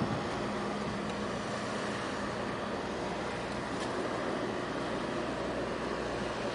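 Steady low drone of a tugboat's diesel engine passing through the harbour, over an even wash of wind and water noise.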